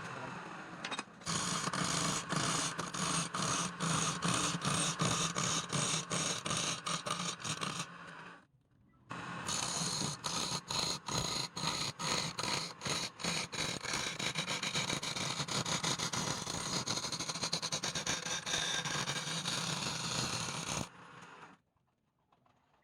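Wood being turned on a lathe, the cutting tool scraping the spinning wood in a steady noise that pulses about two to three times a second. It stops briefly about eight seconds in and stops again near the end.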